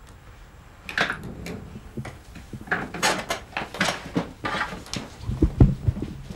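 Scattered knocks and clicks, like objects being moved and handled, with a few heavier dull thumps about five seconds in.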